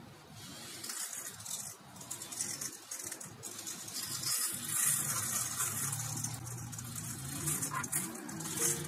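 Thin clear plastic bag crinkling in the hand as glitter is shaken out of it, with a light patter of glitter falling onto the glued surface and the table.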